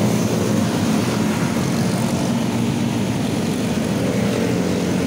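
A steady low mechanical drone of a running motor, unchanging throughout.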